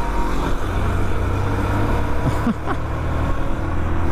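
Yamaha R15 v2's single-cylinder engine running while the bike is ridden, a steady low drone that strengthens about a second in, over road and wind noise.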